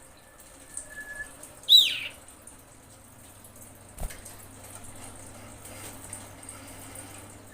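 Female common iora calling: one thin, held whistle, then a loud, sharply falling note about two seconds in. This is the call a female in breeding condition gives to draw a male.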